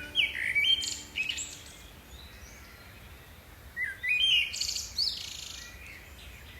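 A songbird singing two short phrases of chirps and buzzy notes, the second about four seconds after the first.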